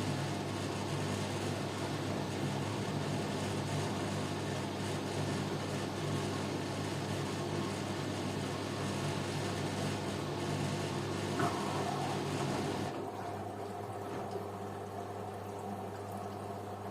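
LG washing machine filling with water: a steady rush of inflowing water over a constant machine hum. About 13 seconds in, the water rush cuts off suddenly and only the hum goes on.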